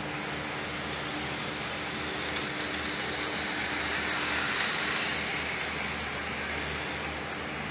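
N scale model trains running on the layout: a steady hiss of small electric motors and wheels on track with a faint hum, swelling a little about four seconds in.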